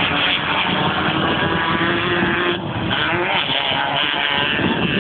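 Class 1 off-road race car engines running hard, a loud continuous engine noise whose pitch shifts as they rev, with a brief dip about two and a half seconds in.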